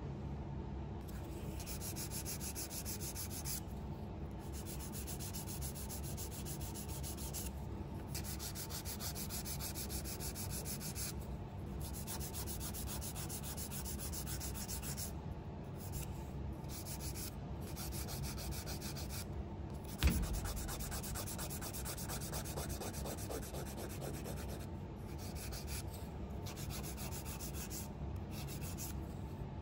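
Hand nail file rasping back and forth over a hardened acrylic sculptured nail, shaping its pointed tip in quick strokes with short pauses every few seconds. A single sharp knock about two-thirds of the way through is the loudest sound.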